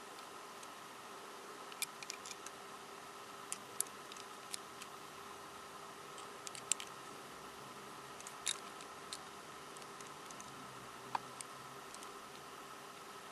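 Small hard plastic pieces of a MoYu 13x13x13 cube clicking and tapping as they are handled: a dozen or so sharp, separate clicks at uneven intervals over a steady faint hiss.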